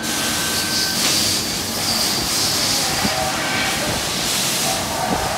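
Steady machine-shop noise: a constant hiss over a low machinery hum, with a steady high tone that cuts off about a second in.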